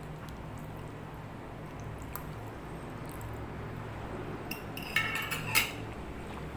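Cutlery clinking against a plate, a few clinks with brief ringing about five seconds in, over a steady low hum.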